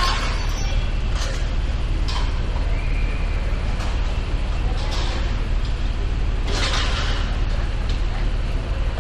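City street ambience: a steady low traffic rumble with a few brief noises over it, the longest about two-thirds of the way through.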